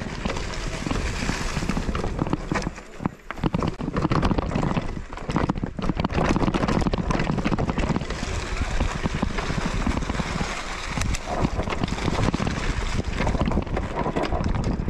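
Mountain bike riding over a rough, muddy trail: wind on the microphone over a constant rattle and knocking from the bike on the ground, with a short lull about three seconds in.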